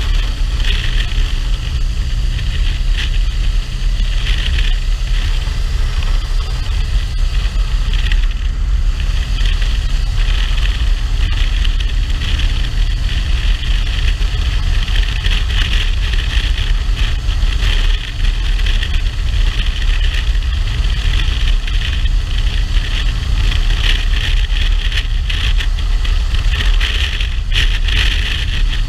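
Motorcycle cruising at steady road speed: a constant rumble of wind buffeting the microphone, with engine and road noise underneath and a steady hiss on top.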